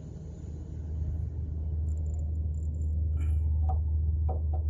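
A steady low rumble that swells about a second in. In the second half come a few light clicks as the test leads are handled at the electrical panel.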